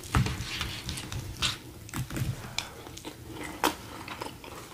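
Chewing and mouth sounds of people eating fried steak, with scattered short clicks of forks and knives against plates.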